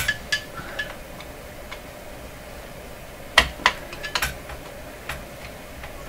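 Small sharp clicks and knocks as the antenna coil is worked loose from the tube radio's metal chassis: a few light clicks at the start, then a louder cluster of about five a little past the middle and one more a second later.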